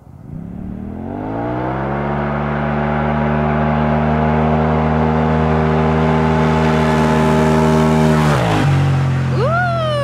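Polaris RZR Turbo S side-by-side's turbocharged 925 cc twin at full throttle on a 0-60 acceleration run. The engine pitch climbs over the first two seconds, then holds steady while the machine gathers speed, and drops sharply as it passes close by about eight seconds in.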